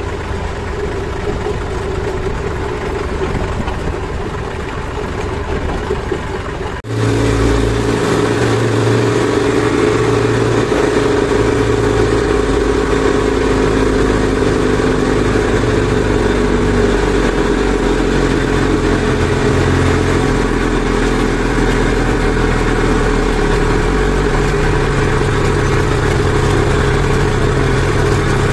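Farm tractor's diesel engine running steadily while driving, heard from the driver's seat beside the exhaust stack. About seven seconds in the sound cuts abruptly to a louder, deeper engine note that carries on steadily.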